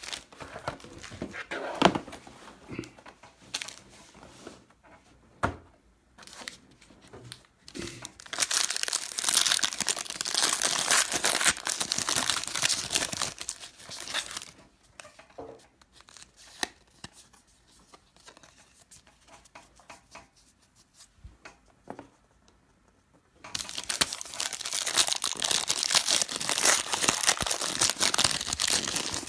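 Plastic wrapping on a sealed sports-card box and its packs being torn open and crumpled in two long stretches of crinkling. The first starts about eight seconds in and the second fills the last six seconds, with scattered taps and clicks of cardboard being handled between them.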